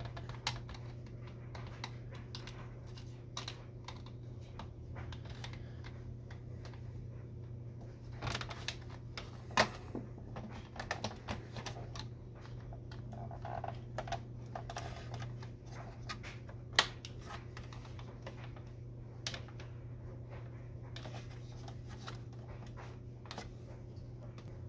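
Scattered small clicks and scrapes of a small screwdriver prying at the hard plastic cover and parts of an Epson XP-340 inkjet printer, with a denser run of clicks about a third of the way in and a few sharper snaps. A steady low hum lies underneath.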